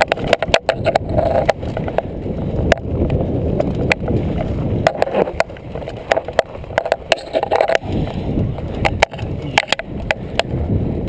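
Mountain bike rolling over rough trail: a steady rumble of tyres on dirt and rock with frequent sharp knocks and rattles from the bike.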